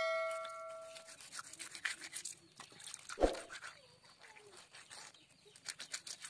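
A knife scraping scales off small river fish on a wet stone slab, in a run of quick rasping strokes. A ringing metal tone fades out within the first second, and there is a single loud knock about three seconds in.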